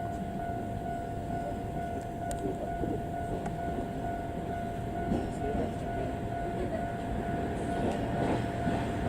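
Railway level-crossing alarm ringing steadily with a repeating electronic tone, over the low rumble of a DE10 diesel-hydraulic locomotive working nearby.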